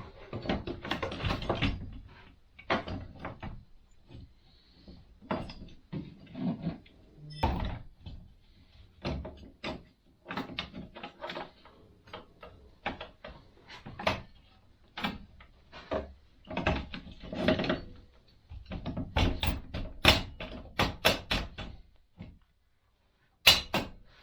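Uneven clicks, clanks and knocks of hand tools and metal parts as a Honda Grom's rear wheel and axle are refitted.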